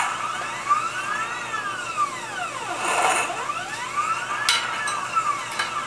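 CNC wire bender's motor drive whining as it puts an offset bend in 5/32 piano wire. The whine rises and then falls in pitch twice as each move speeds up and slows down. There is a click at the start and another about four and a half seconds in.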